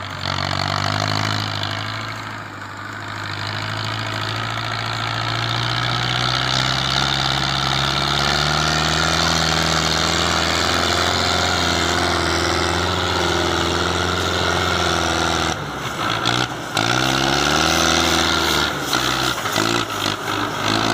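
Belarus 510 tractor's four-cylinder diesel engine running under load as it hauls a heavily loaded trolley, its steady note slowly rising in pitch. About three-quarters of the way through the engine note dips and breaks twice, then climbs again.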